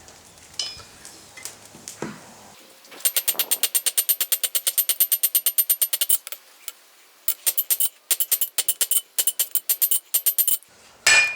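Hand hammer striking hot 12 mm rebar on an anvil. A rapid, even run of ringing blows starts about three seconds in, then more runs of blows follow with short pauses, and a couple of heavy strikes come near the end.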